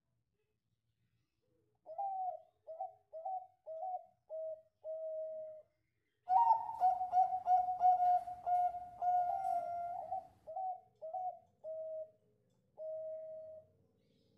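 Zebra dove (perkutut) singing its cooing song. A run of six short coos comes first, the last one drawn out. After a short pause comes a louder, faster run of coos, then a few spaced coos and a long drawn-out final coo.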